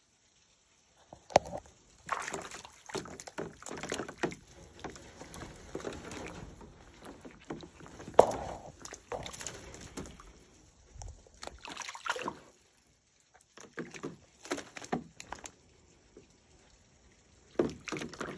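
Water sloshing and splashing in a plastic wading pool as a bobcat paws at floating bath toys, in irregular bursts with a few sharp knocks, the loudest about eight seconds in.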